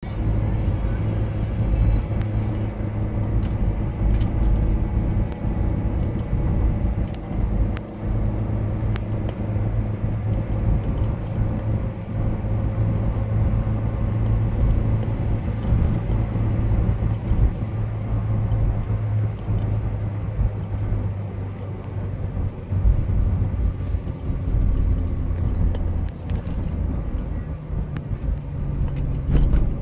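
Road noise inside a moving car's cabin: a steady low drone of engine and tyres on the highway.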